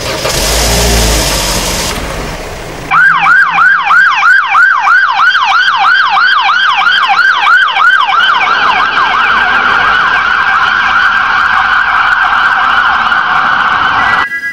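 Emergency-vehicle siren in a fast yelp, a rising whoop about two and a half times a second, smoothing into a steadier wail later on and cutting off suddenly near the end. It comes in about three seconds in, after a loud rushing noise.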